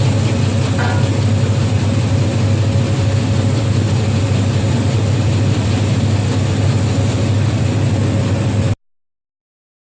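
Meatball-making machine's motor running with a steady low hum, which cuts off abruptly near the end.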